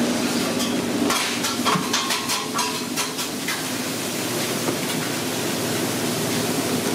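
A spoon stirring and scooping through a tub of thick, wet, finely chopped mixture, with irregular soft scrapes and clicks in the first half, over a steady low kitchen hum.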